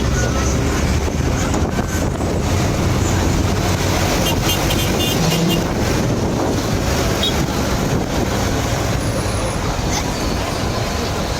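Road traffic: a steady rumble of passing cars, with a few faint short high chirps about four to five seconds in.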